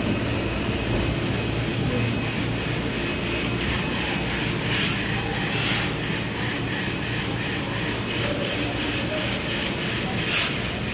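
Printing machines running on a print-shop floor: a steady mechanical hum and clatter, with a faint fast rhythmic ticking in the middle and three short hissing bursts, about five, six and ten and a half seconds in.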